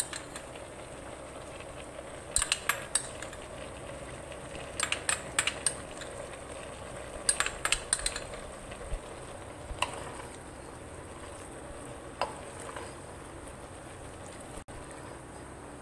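A metal spoon clinks in three quick runs of taps in the first half as yogurt is scraped from a ceramic bowl into an aluminium pressure cooker. A few lighter knocks follow as the stew is stirred in the pot, over a steady faint sizzle.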